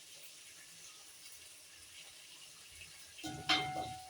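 Metal cookware struck once, about three seconds in, ringing on with a clear bell-like tone for nearly a second, over the steady faint hiss of chicken frying in oil.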